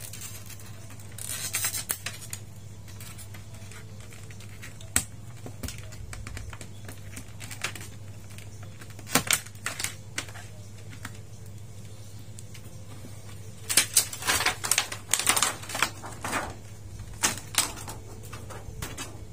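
Scattered light clicks and taps of plastic parts as an LED TV's white backlight reflector sheet is worked loose with fingers and tweezers and lifted away, with busy clusters of taps about a second in and again around the middle-to-late part. A steady low hum runs underneath.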